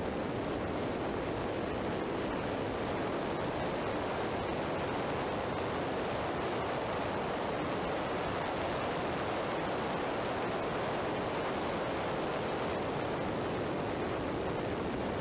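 Steady rush of wind and tyre noise on a camera mounted low on a motorcycle's fairing, riding at highway speed. No distinct engine note comes through the rush.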